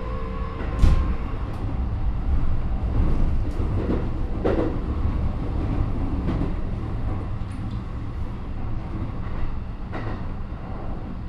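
Keikyu 1000 series electric train running, heard from inside the car: steady wheel-on-rail rumble with sharp rail-joint knocks, the loudest about a second in. The traction motor whine dies away within the first second, as the train coasts.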